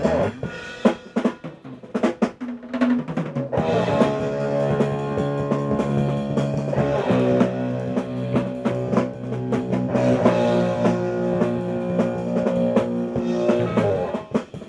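Rock band recording. A drum kit plays scattered hits for the first few seconds, then guitars and bass come in holding long ringing chords with the drums. Near the end the chords stop and the drum kit goes on alone as the drum solo begins.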